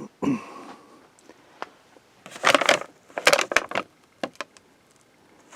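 Paper drawing sheets being handled, rustling and crinkling in two loud bursts, followed by a few small clicks.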